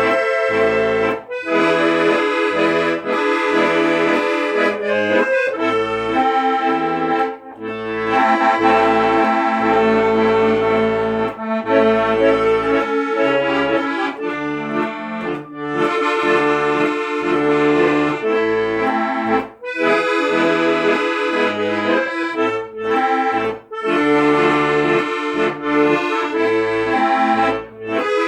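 Instrumental music on an accordion: a held, reedy melody over a pulsing bass-and-chord accompaniment, with no singing.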